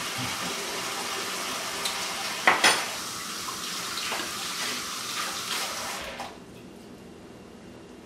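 Kitchen sink tap running as hands are washed under it, with a brief clatter about two and a half seconds in. The tap is turned off about six seconds in.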